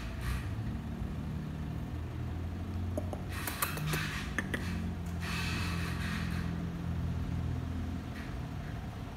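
A vehicle engine idling with a steady low rumble. Hissing comes in about three seconds in and again between five and six and a half seconds in, with a few sharp clicks between three and four and a half seconds.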